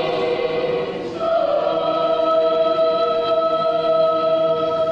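Mixed choir of men and women singing a German Romantic choral piece. A held chord gives way to a new one about a second in, which is sustained for several seconds and fades near the end.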